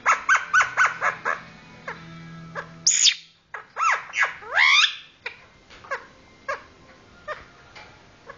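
Pet lovebird calling: a quick run of short chirps, then a shrill squeak about three seconds in, followed by a few swooping calls and scattered single chirps.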